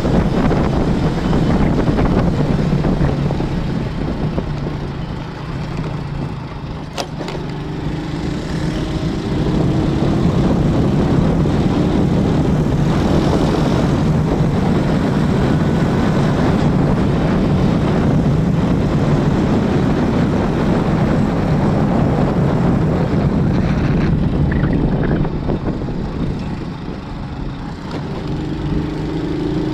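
Steady motor-vehicle engine and road noise. Twice it dips, then a tone climbs in pitch as the vehicle speeds up again.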